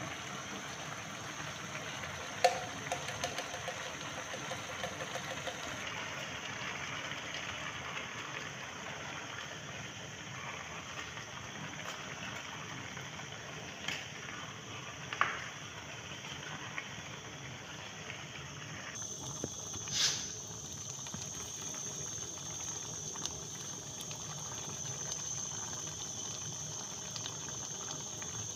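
Pot of jollof rice and beans simmering, a steady bubbling hiss. A few sharp knocks of the stirring spoon against the aluminium pot.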